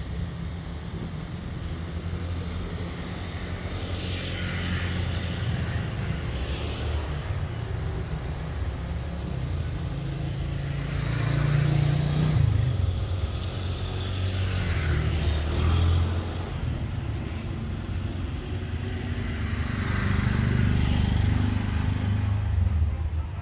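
Road traffic passing: a steady low rumble of engines that swells several times as vehicles go by.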